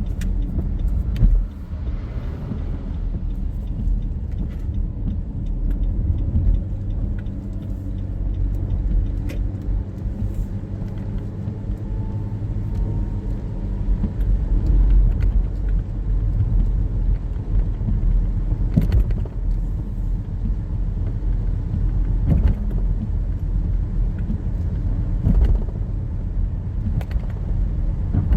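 Car driving on the road, heard from inside the cabin: a steady low rumble of engine and tyres, with a few sharp clicks scattered through and one louder knock about a second in.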